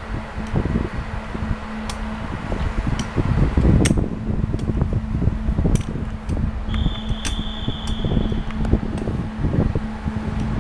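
Railway locomotive or train machinery running with a steady hum and uneven rumble, broken by several sharp clicks. A thin high tone sounds for about two seconds past the middle.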